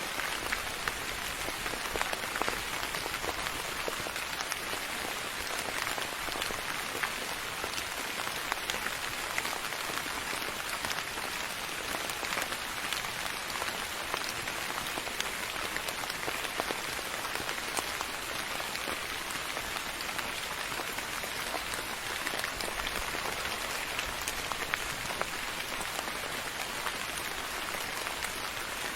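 Steady rain falling on a surface, an even patter of many fine drop ticks with no change in intensity.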